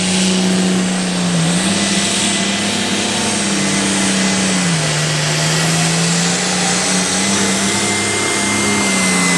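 International 1206 pulling tractor's diesel engine running loud at full power under load. The engine note sags and recovers a few times, over a steady high whine, and begins to fall away right at the end.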